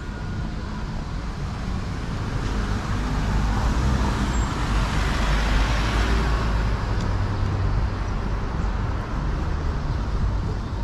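An SUV driving past close by, its engine and tyre noise swelling to a peak about halfway through and then fading, over a steady low rumble of city traffic.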